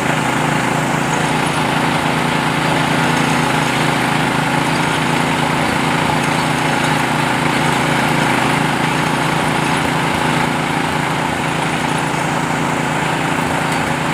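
Small engine of a borehole well-drilling machine running steadily at a constant speed.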